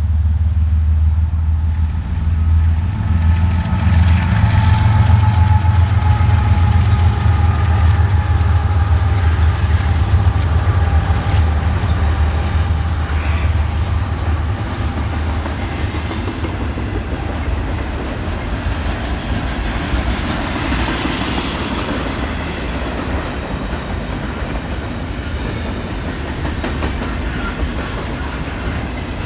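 A diesel-hauled train rolling past close by. The heavy engine rumble is loudest about five seconds in and then slowly fades, and a faint whine drops gradually in pitch as it goes by.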